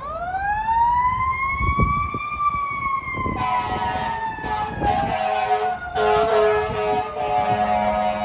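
Fire truck siren winding up to a peak about two seconds in, then slowly winding down. From about three seconds in, several horn blasts sound over it, the last one long.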